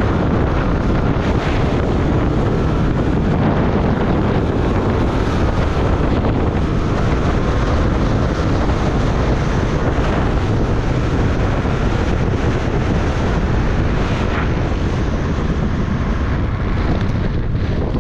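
850 cc two-stroke mountain snowmobile running steadily under load, mixed with heavy wind buffeting on the microphone.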